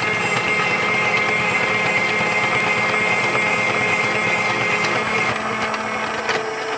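Starfrit electric spiralizer's motor running with a steady whine as it cuts a carrot into spiral noodles; the sound changes slightly a little over five seconds in.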